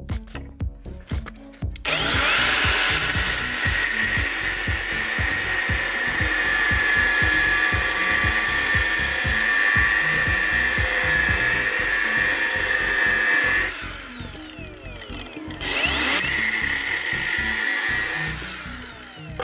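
A power tool running in two long runs, the first about twelve seconds and the second a few seconds, over background music with a steady beat.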